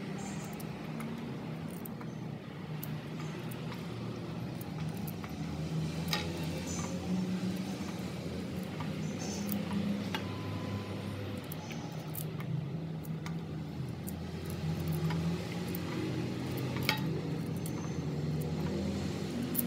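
Scattered light clicks and clinks of Chinese potato tubers knocking against steel pots as they are handled in water, over a steady low hum.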